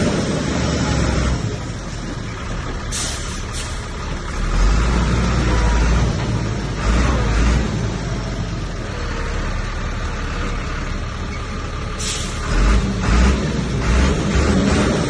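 Komatsu bulldozer's diesel engine running and working under load, its low rumble swelling twice as it pushes. Two short, high hisses break in, about three seconds in and again near twelve seconds.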